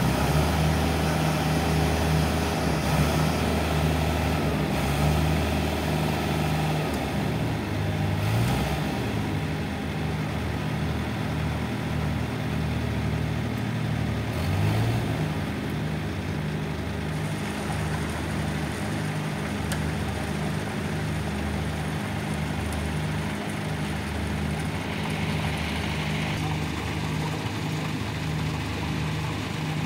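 Diesel engine of a JCB telescopic handler running steadily as it works its hydraulic boom, the engine note rising briefly twice, about 8 and 14 seconds in.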